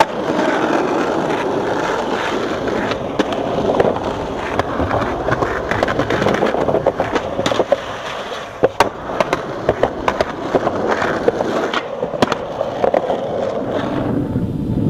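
Skateboard wheels rolling over pavement, with a run of sharp clacks and knocks from the board popping and landing and the trucks hitting a ledge.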